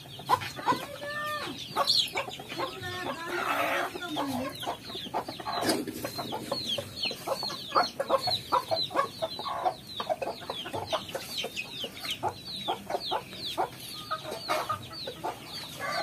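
Free-range local chickens: hens clucking, with chicks peeping in rapid, high, falling chirps through most of it, and a few longer calls in the first few seconds.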